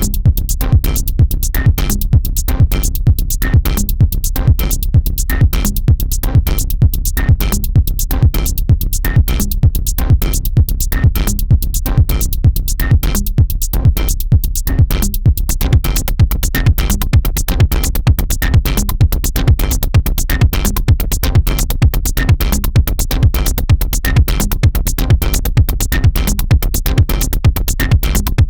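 Electronic dance music with a fast, steady drum-machine beat.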